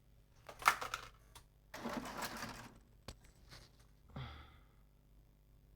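Faint handling noises on a workbench: a few sharp clicks, a second-long rustle, then a single click and a short knock.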